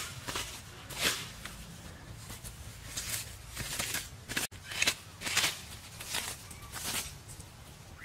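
Grass and weeds being hacked and torn out with a hand blade: a series of short rustling, swishing strokes, roughly one a second.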